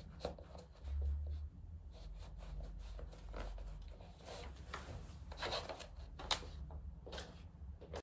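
Socked feet slipping into fluffy slippers and shuffling on a laminate wood floor: soft irregular scuffs and light taps over a low steady room hum, with a dull bump about a second in.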